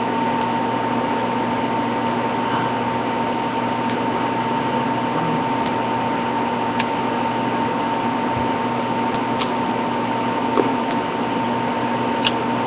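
Steady hiss and hum of office room tone, with a constant thin whine running through it and a few faint clicks.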